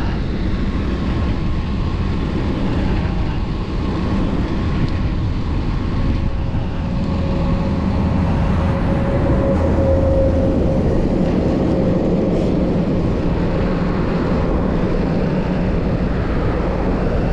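Steady road traffic noise, with a motor vehicle's hum swelling and fading around the middle.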